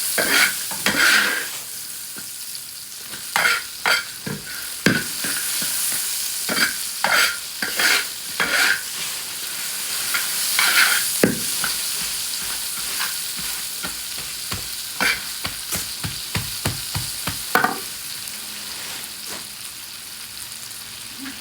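Stir-frying in a wok: oil sizzles steadily while a metal spatula scrapes and knocks against the pan in irregular strokes, coming quickly in a run near the end.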